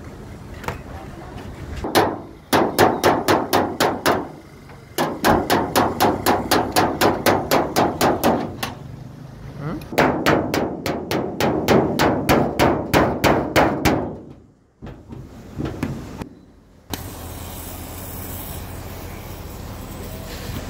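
Rapid hammer blows, about six a second, in three runs with short pauses between them. Near the end a steady hiss takes over.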